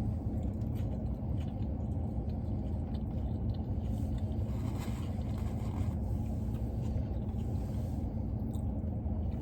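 Steady low rumble of an idling car engine with a constant hum, with faint clicks of eating on top.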